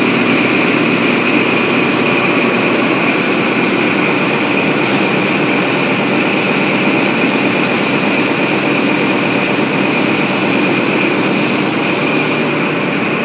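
XPT diesel power car idling at the platform: a steady engine drone with a constant high whine over it.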